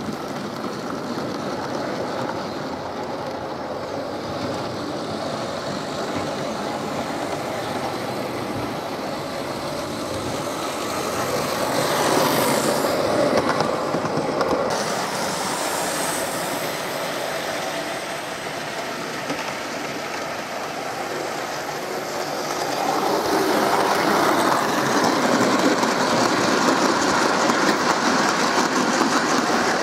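Model railway train (a model Class 37 diesel locomotive with sheeted wagons) running along the track with a steady rolling rattle of small wheels on the rails. It grows louder about twelve seconds in, and again for the last several seconds as the wagons pass close by.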